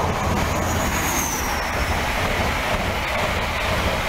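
High Speed Train (InterCity 125) running through the station at speed: a loud, steady rush of engine and wheels on rail, with a thin high whistle that falls in pitch about a second in.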